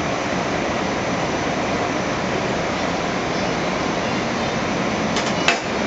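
Steady rushing roar of a commercial kitchen's gas range burner on high flame and its ventilation, with a few light metallic clinks about five seconds in.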